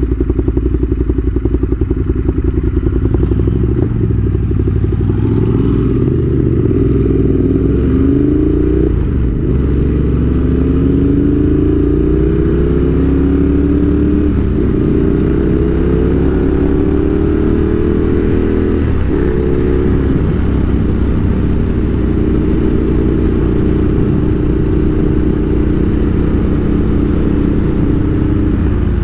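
Ducati Monster 1200 S's 1198 cc L-twin engine idling, then pulling away and revving up through the gears. The pitch rises in several sweeps with short breaks at the upshifts, then holds steady at cruising speed near the end.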